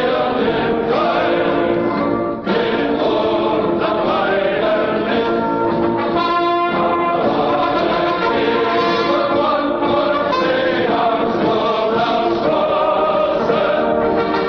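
A choir singing a national anthem, backed by orchestra and brass, in long held notes.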